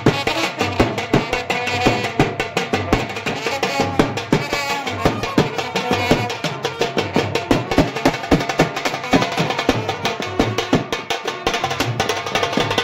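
Music driven by rapid, steady drumming and percussion, with sustained tones above the beat.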